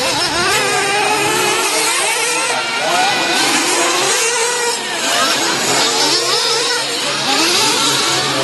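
Several 1/8-scale nitro RC truggy engines revving at once, their high whines overlapping and constantly rising and falling in pitch as the cars accelerate and brake around the track.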